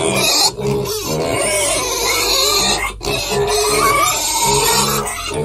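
Many piglets grunting and squealing at once, without a break.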